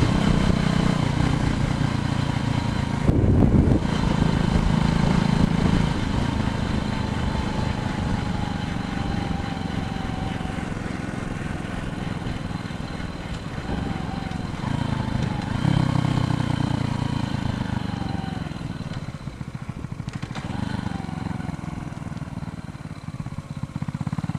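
Wind buffeting the microphone and tyre noise on the road during a bicycle ride, a steady rumble that swells and eases in gusts, with faint tones that slowly drift down in pitch.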